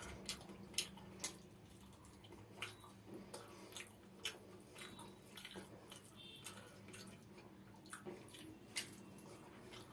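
Faint eating sounds: soft wet squishes and scattered small clicks of fingers mixing rice into thick mustard gravy on a plate, along with chewing.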